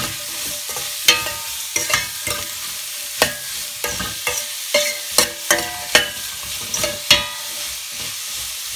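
Chopped onions sizzling as they sauté in hot oil in a stainless-steel pot, stirred with a metal spoon that clinks and scrapes against the pot in sharp ringing taps, most of them between about one and seven seconds in.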